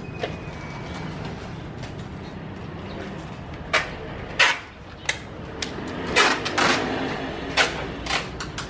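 Packing tape being pulled off the roll in a series of short, sharp rips and wound around a person's torso, over a steady low hum.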